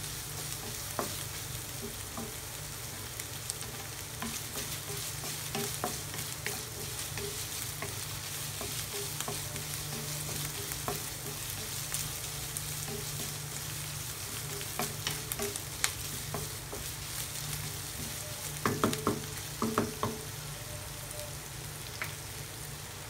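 Ground beef with garlic and onion sizzling in a frying pan, stirred steadily with a wooden spatula that scrapes and clicks against the pan. A burst of louder knocks comes about three-quarters of the way through.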